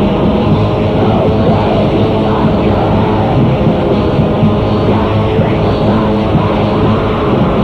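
Raw black metal recording: a dense wall of distorted band sound playing without a break, dull and muffled with little top end.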